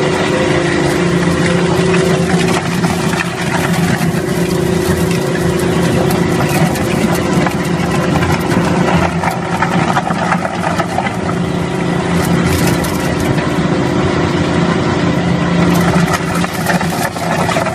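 Wood crushing and grinding machinery running steadily under load. It makes a continuous motor hum over a dense crackle and rattle of wood chips and shavings being shredded and conveyed.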